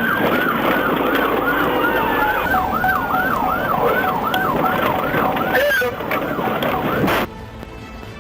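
Police car siren in a fast yelp, its pitch sweeping up about twice a second; it cuts off abruptly near the end.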